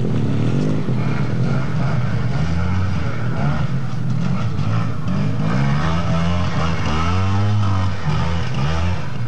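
Trials motorcycle engine revving up and down, its pitch swelling and falling again several times as the rider works the throttle to pick through a trials section.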